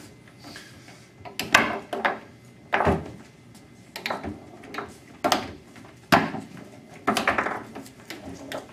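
Foosball table in fast play: sharp, irregular knocks as the ball is struck by the player figures and slams into the walls and rods, about eight in all.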